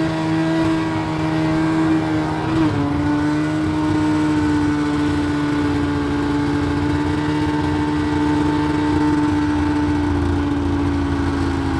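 Snowmobile engine running loudly at a steady speed, its pitch dropping slightly a little under three seconds in and then holding.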